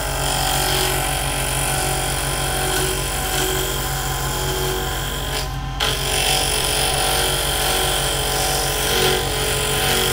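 Wen 3421 benchtop wood lathe running, its motor humming steadily while a hand chisel cuts into a spinning, still-square wood blank, roughing it toward round. The sound breaks off briefly just past halfway, then carries on the same.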